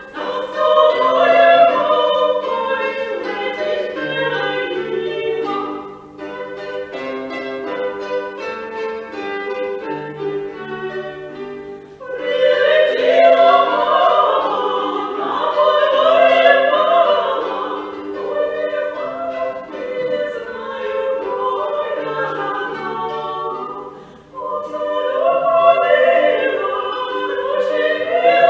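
A woman sings a 17th-century Ukrainian kant to the accompaniment of a plucked kobza and a violin. About six seconds in, the voice drops out for a short instrumental passage, then comes back around twelve seconds in.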